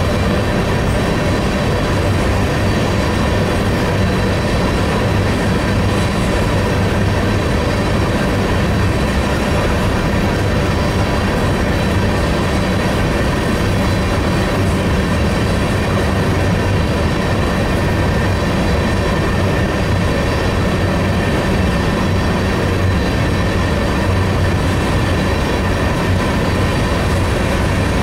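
Freight train of covered hopper cars rolling past close by: a steady, unbroken rumble of steel wheels on the rails, strongest in the low end, with faint steady high tones over it.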